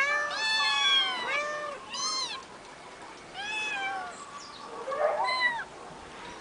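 Young kittens meowing repeatedly in short, high, arching meows. A quick overlapping run of meows comes in the first two seconds, then single meows follow a second or more apart.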